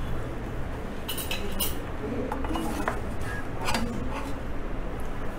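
A metal spatula scraping and clinking against a metal pizza pan as a baked pizza is slid out of it: a few scattered clinks and scrapes, the sharpest about a second in.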